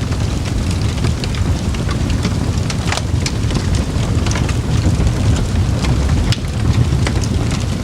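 Campfire burning: a steady low rumble of flames with frequent irregular crackles and pops from the burning wood, one sharper pop about three seconds in.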